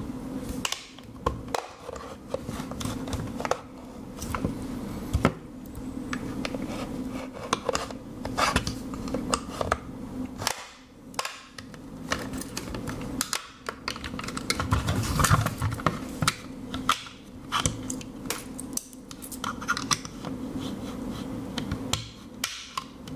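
Metal spoon blade of a Victorinox MiniChamp Swiss Army knife prying and scraping at the plastic battery cover of a remote control: irregular clicks, scrapes and small knocks, over a steady low hum.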